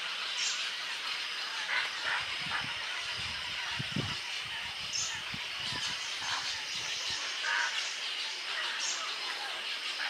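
Colony of egrets perched in the trees: a steady din of bird calls, with short, higher calls standing out a few times. A low rumble comes through between about two and seven seconds in.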